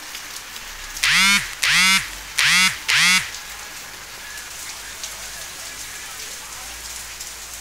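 Steady rain falling on the yard and street. Between about one and three seconds in, an animal gives four loud calls in quick succession, each rising and then falling in pitch, much louder than the rain.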